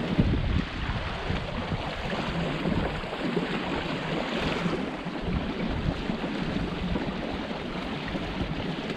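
Wind buffeting the microphone over the rush and slap of choppy water along the hull of a Wayfarer sailing dinghy under sail, with the strongest gust right at the start.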